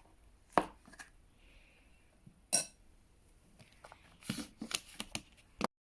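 A few scattered clinks and knocks of containers and dishes being handled on a table, with one ringing clink about halfway through and a quick run of small knocks near the end.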